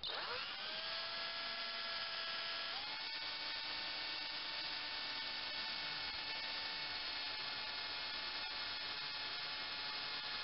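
Electric drill spinning up and running steadily as its bit bores through the plastic head of a car key; the motor whine rises as it starts and steps up in pitch about three seconds in.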